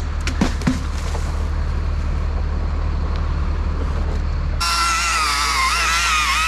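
Bucket truck engine running with a steady low hum, with a few short knocks in the first second. About four and a half seconds in the sound cuts abruptly to a wavering, high-pitched motor whine.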